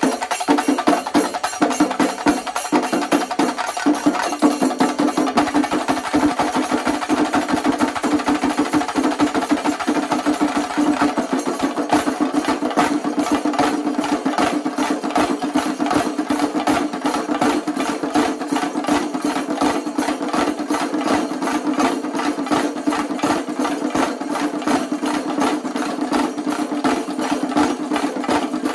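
A Singarimelam ensemble of chenda drums beaten with sticks, many players together in a fast, dense, unbroken rhythm.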